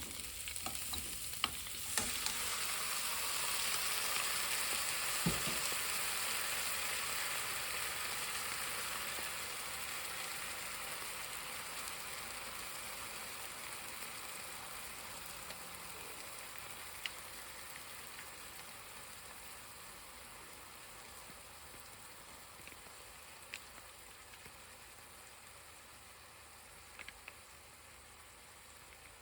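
Food sizzling in a frying pan: a steady hiss that swells over the first few seconds and then slowly dies away, with a few light clicks along the way.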